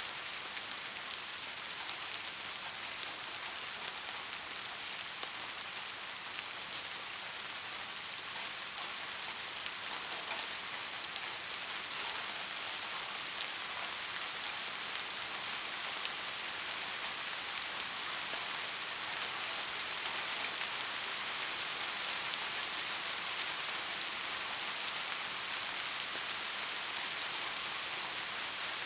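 Steady rain falling, an even hiss with scattered individual drops.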